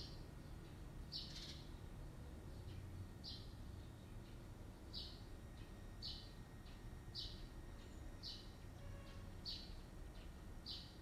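A bird chirping faintly, one short high note about once a second with softer chirps in between, over a low steady hum.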